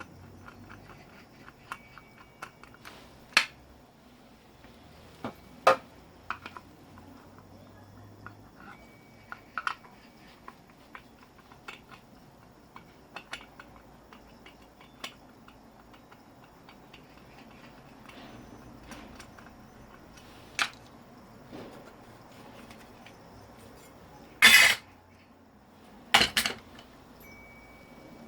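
Scattered metal clinks and knocks from handling the parts of a scrap electric motor being stripped for its copper, with two louder clanks near the end.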